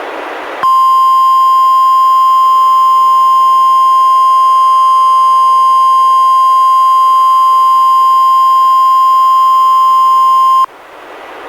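NOAA Weather Radio 1050 Hz warning alarm tone, sent during the Required Weekly Test to trigger tone-alert receivers: a single loud, steady high tone about ten seconds long that starts and cuts off abruptly. A hiss is heard just before it starts and again after it stops.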